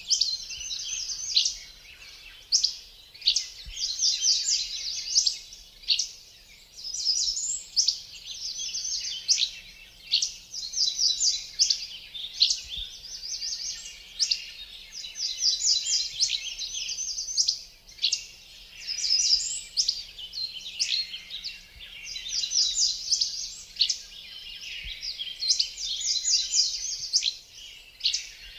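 Forest birds singing: rapid high-pitched trills and chirps that come in phrases every second or two and overlap each other.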